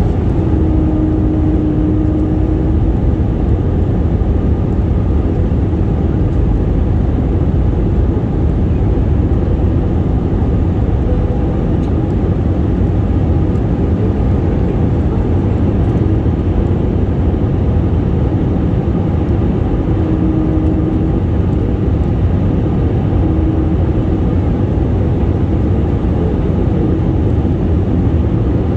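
Airplane noise: a loud, steady low rumble that neither rises nor falls.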